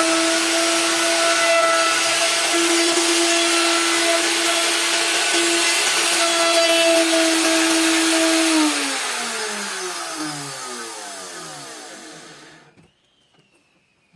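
An electric woodworking power tool running at steady speed with a high whine. About nine seconds in it is switched off and winds down, its pitch falling as it fades to a stop.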